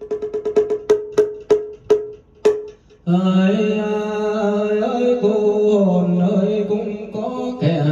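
Chanted ritual recitation: a run of pitched percussion strokes that slow down and stop about two and a half seconds in, then, after a brief gap, a voice chanting a long drawn-out melodic line on held, stepping pitches.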